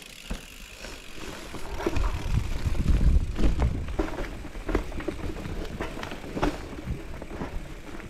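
Mountain bike riding over a rough, natural forest trail: tyres rolling on dirt with a low rumble that is loudest about three seconds in, and repeated sharp clacks and rattles as the bike hits roots and rocks.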